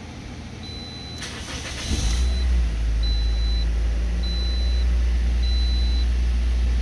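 2009 Toyota Matrix's four-cylinder engine cranking briefly and catching about two seconds in, then running steadily. This is the first start after an immobilizer key-code mismatch (code B2799) had left it cranking without starting. A high electronic chime beeps at an even pace, about once a second.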